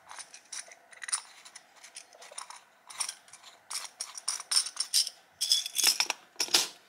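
Small nail charms clicking and rattling as they are handled and put into a plastic desk organizer: irregular light clicks and rustles, busier in the second half.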